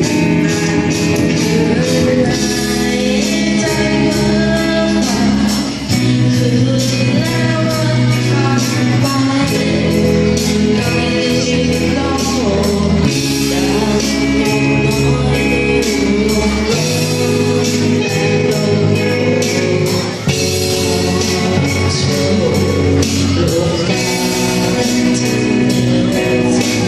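A song with singing over a full band: guitar, bass and percussion playing continuously.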